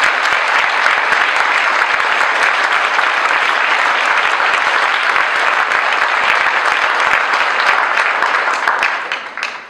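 Audience applauding, dense and steady, then fading out near the end.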